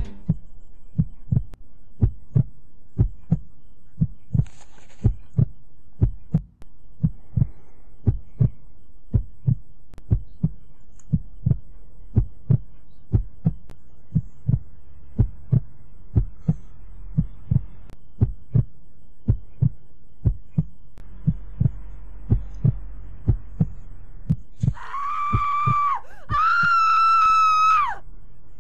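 Heartbeat sound effect: steady low thumps, about two a second, over a faint hum. Near the end, two long high-pitched tones, the second a little higher.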